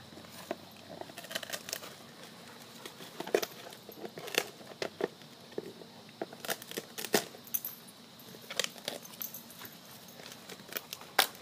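Labrador chewing and tearing at a palm frond, making irregular crunches and crackles with a few sharp snaps.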